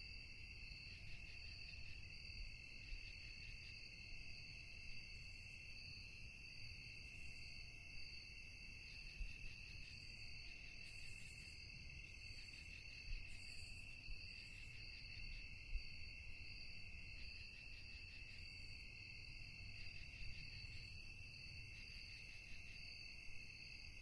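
Crickets chirping, a steady pulsing trill from several insects at different pitches, with a faint short low note repeating about every two seconds.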